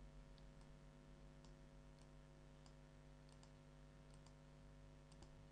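Near silence: faint, scattered computer mouse clicks over a steady low hum.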